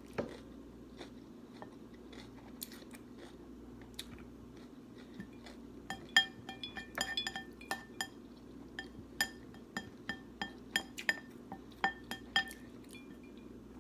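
Eating sounds: chewing and biting, with a utensil clicking and scraping against a plate. From about six seconds in come quick clinks that ring with a clear tone.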